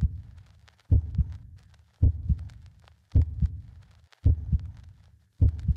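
Heartbeat sound effect: a deep lub-dub double thump repeating steadily, a little over a second apart, about five beats.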